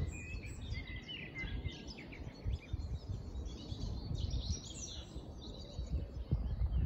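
Several songbirds singing and chirping in quick, overlapping phrases, over a low, uneven rumble.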